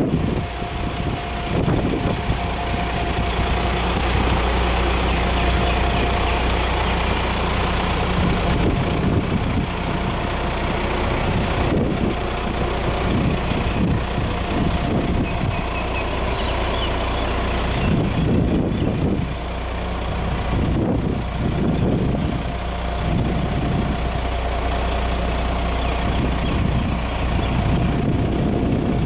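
Diesel engine of a 2008 Caterpillar 972H wheel loader running at low, idle-like revs as the machine is manoeuvred slowly. A steady high whine sits over the deep engine rumble.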